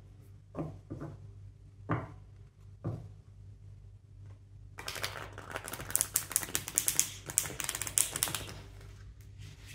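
A deck of tarot cards being handled and riffle-shuffled: a few separate knocks in the first three seconds, then about five seconds in, the cards flick together in a rapid run of clicks lasting about three and a half seconds.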